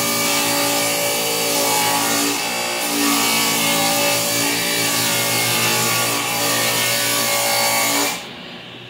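Table saw ripping a board lengthwise into a narrow strip: a loud cut over the steady hum of the running saw. The cut ends sharply about eight seconds in as the board clears the blade, and the saw keeps running, much quieter.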